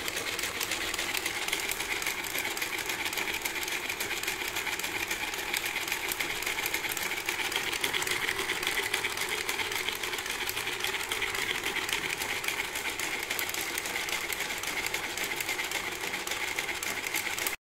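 3D-printed plastic four-cylinder engine model running, its PLA and ABS parts making a steady, rapid clatter with a high hum over it. The sound cuts off suddenly at the end.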